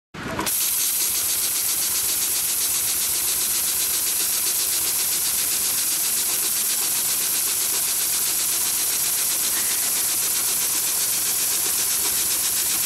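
HIGHTEX 728-30P long-arm triple-feed sewing machine running at steady speed, stitching through thick multi-layer canvas webbing in a rapid, even stitch rhythm with a steady hiss over it. It starts about half a second in.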